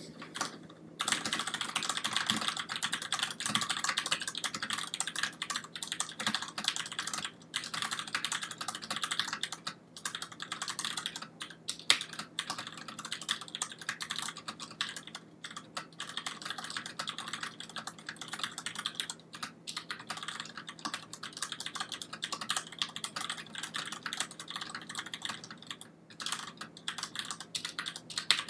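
Fast continuous typing on a Ducky Shine II mechanical keyboard with Cherry MX Brown switches, a dense run of key clacks with brief pauses every few seconds.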